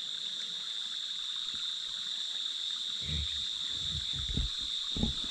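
Insect chorus at dusk: one steady, high-pitched drone that does not change. From about three seconds in, low knocks and rumbles join it.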